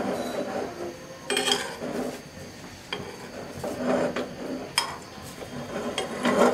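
Metal spatula scraping and knocking against a non-stick frying pan in several short strokes, with one sharp click, as a rolled rice-flour crepe is pushed into shape.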